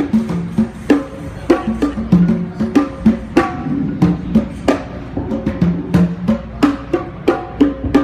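Congas and bongos played through the stage PA at a sound check: a steady rhythm of sharp hand strikes, a little under two a second, with ringing low drum tones between them.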